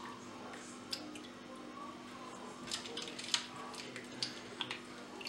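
Water sloshing and dripping in a steel pot of ice water as hands rub the skin off boiled octopus legs, with a few short splashes over a faint steady hum.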